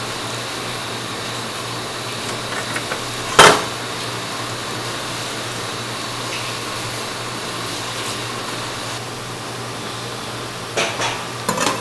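Steady hum of kitchen ventilation, with a single sharp knock on the steel tray about three and a half seconds in, and a few short crackles of aluminium foil near the end.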